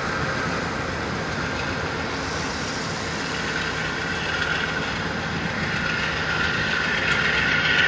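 Amtrak P42 diesel-electric locomotive running as it moves slowly along a yard track: a steady drone with a higher whine that grows louder over the last few seconds.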